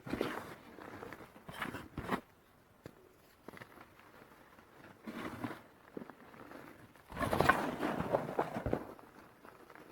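Reformed gym chalk being crushed with a soft, crumbly crunch, in four separate bursts. The longest and loudest comes about seven seconds in.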